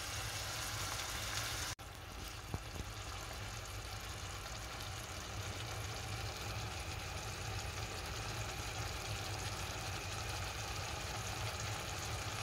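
Beef liver simmering in a spiced onion sauce in a frying pan, with a steady bubbling sizzle and a low hum underneath. The sound breaks off for an instant about two seconds in.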